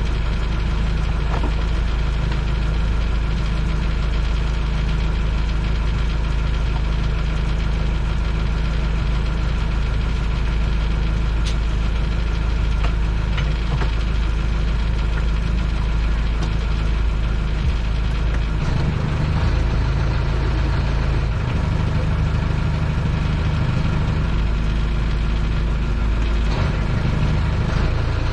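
Boat engine running steadily at low speed while under way. Its pitch shifts about two-thirds of the way through and again near the end.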